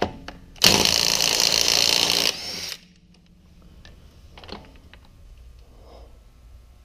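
Ryobi 18-volt cordless impact tool running in one burst of about a second and a half, spinning a lug nut off, then winding down; a few faint knocks follow.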